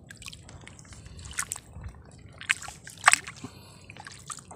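A hand probing down a water-filled mud crab burrow in wet mud: sloshing and squelching, with sharp wet smacks of water and mud about two and a half and three seconds in.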